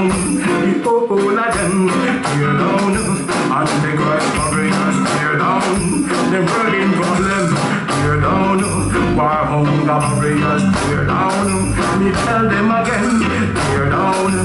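Live band playing an instrumental passage on electric guitar, bass guitar and drums, with a steady beat. The bass gets heavier about halfway through.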